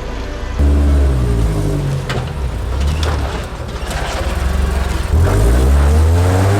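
Rock-crawling truck engine revving up and down, with a few sharp knocks. It jumps suddenly louder about half a second in and again near five seconds.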